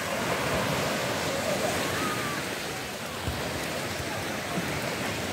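Beach ambience: surf washing on the shore, with faint distant voices of beachgoers.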